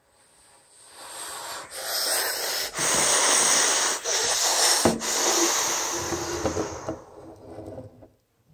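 A child's breathy whooshing noise made close to the microphone, imitating a jet plane. It swells up over a couple of seconds, holds loud with a few brief breaks, and fades away near the end.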